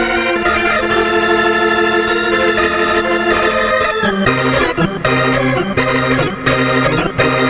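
Background music of sustained organ-like chords; about four seconds in it moves to lower notes that break off and restart in a slow, roughly once-a-second rhythm.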